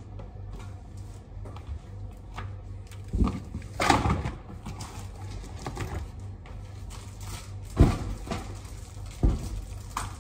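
Goods and packaging being handled and set down: a scatter of knocks and thuds, the loudest about three to four seconds in and again near eight and nine seconds in, over a steady low hum.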